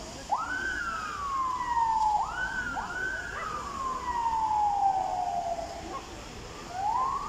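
Emergency vehicle siren wailing. Each note sweeps up quickly and then slides slowly down. Three come in a row, and a fourth begins rising near the end.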